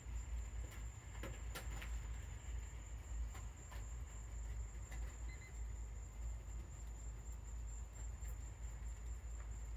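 Steady low outdoor rumble with a thin, constant high-pitched whine over it and a few faint scattered clicks; a brief, faint electronic beep sounds about five seconds in.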